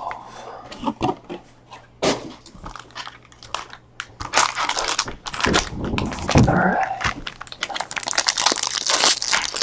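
Foil wrappers of baseball card packs crinkling and rustling as they are handled, in irregular bursts that grow busier in the second half.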